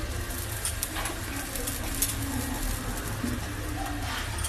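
A bird cooing faintly in short low phrases over a steady low hum.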